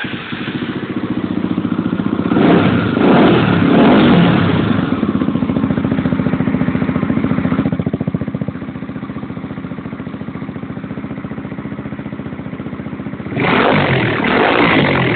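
Honda CBX 250 Twister's single-cylinder four-stroke engine through a TRS Trioval aftermarket exhaust, starting up and being revved. It settles to a steady idle about eight seconds in, then is revved again near the end.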